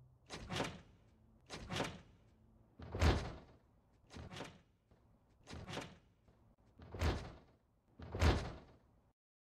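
Knocking on a wooden door: seven evenly spaced double knocks, a little over a second apart.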